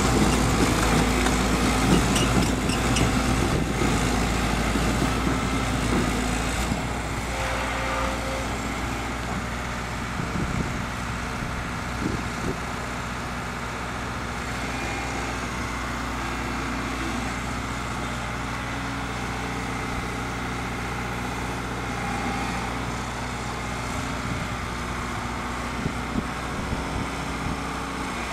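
Liebherr 924 Litronic excavator's diesel engine running steadily. It is louder for the first several seconds, then settles to a lower, even run, with a few faint knocks.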